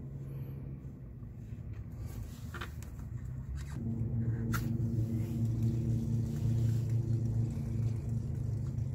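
A steady low mechanical hum with an even pitch, growing louder about four seconds in, with a few light clicks before and as it swells.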